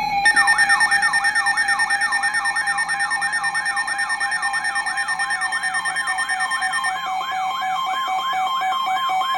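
Electronic emergency alert tone: a siren-like falling sweep that repeats about three times a second over steady held tones. Part of the steady tones cuts out about seven seconds in. It announces an incoming emergency alert broadcast.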